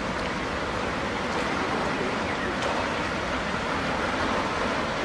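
Steady rushing of water pouring through the sluices of a lock chamber during a lockage, with a low flickering rumble underneath.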